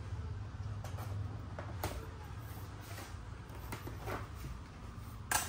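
Cardboard box of a speaker being pulled and pried open by hand: a few faint scrapes and taps, then a sharper knock near the end, over a steady low hum.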